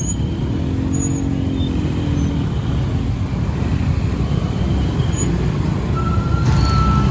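Many motorcycle engines running and revving together as a crowd of scooters pulls off across the level crossing. A steady high tone, such as a horn, sounds for about a second near the end.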